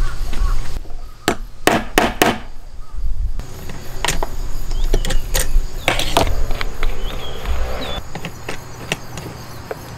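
Wooden knocks and clicks as a plywood tailstock block and a driftwood blank are set and tightened on a homemade drill-driven lathe: a quick run of four sharp knocks a second or two in, then scattered lighter taps and clicks.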